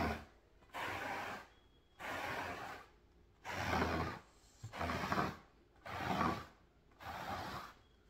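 Triple-row rubber-bristled pet hair remover brush scraping across a rug's pile, about seven rasping strokes roughly one a second, each with a short pause between, pulling dog hair out of the rug.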